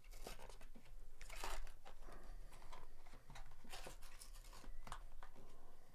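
Glued-shut cardboard baseball card box being torn apart by hand: irregular tearing, crackling and rustling of paperboard.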